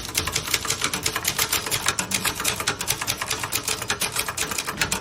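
A 1977 Kmart Brother 100 typewriter being typed on quickly: a steady run of sharp key strikes, about seven a second, as a type sample is typed out.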